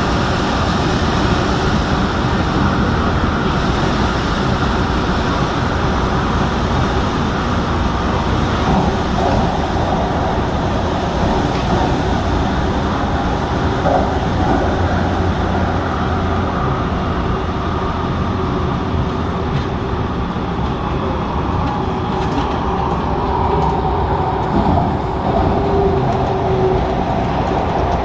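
MTR Tung Chung line CAF electric multiple-unit train running, a steady loud rumble of wheels on track heard from on board. A brief faint whine comes in near the end.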